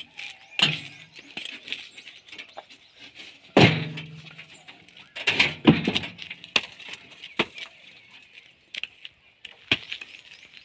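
Fired clay bricks clinking and knocking against each other as they are passed down and stacked into a steel tractor trolley: irregular sharp clacks with a short ring, the loudest about three and a half seconds in and a pair around five and a half seconds.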